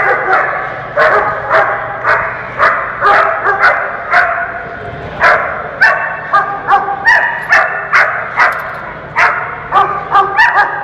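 A dog barking over and over, about two barks a second, coming quicker in the second half.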